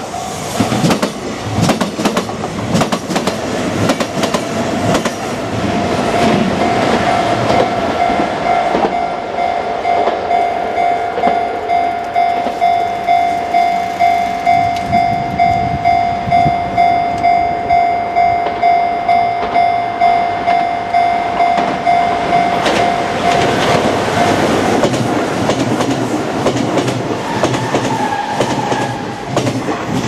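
Japanese level-crossing warning bell ringing in a steady, even repeat of about one and a half strokes a second, stopping about three-quarters of the way through. A Kintetsu commuter train passes over the crossing at the start, its wheels clattering over the rail joints, and train noise rises again near the end.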